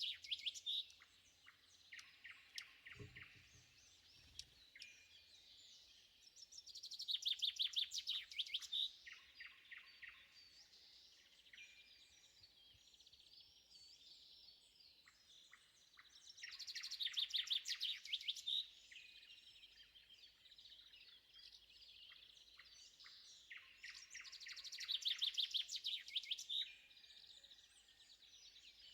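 Dawn chorus of woodland songbirds. One bird near the microphone sings a loud phrase of rapid repeated notes, about two seconds long, roughly every eight seconds (four times), over steady fainter chatter from other birds. A brief low thud comes about three seconds in.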